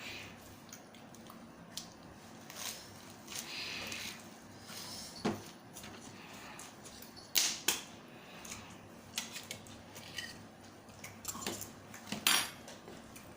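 Eating sounds from a Thai spicy seafood salad: chewing and scattered clicks and taps of utensils against dishes, with a few sharper clicks in the second half.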